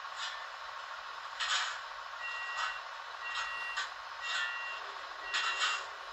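Electronic warning beeps, two tones sounding together, each about half a second long and repeating once a second from about two seconds in, over a steady hiss with a few short rushes of noise.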